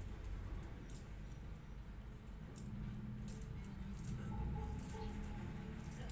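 Irregular light clicks and crackles of fingers working through a dog's long fur close to the microphone, over a low steady hum.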